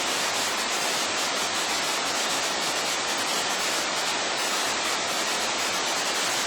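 Waterfall: a steady rush of falling water, mostly a high hiss with little low rumble.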